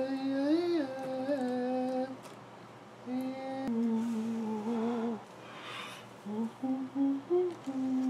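A man humming a slow tune to himself in long held notes, the phrases broken by short pauses.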